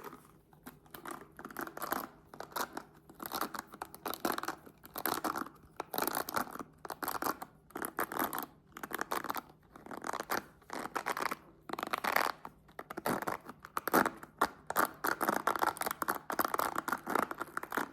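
A new hairbrush and its plastic packaging being handled up close, heard as irregular scratching, rustling and tearing strokes in quick succession.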